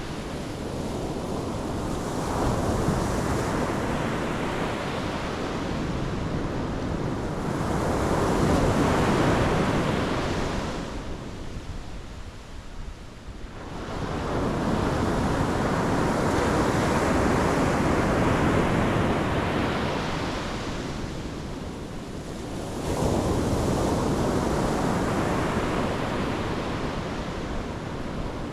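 Pacific Ocean surf breaking on the shore, rushing in one wave after another in slow swells of a few seconds each, with a quieter lull about halfway through. Wind rumbles on the microphone underneath.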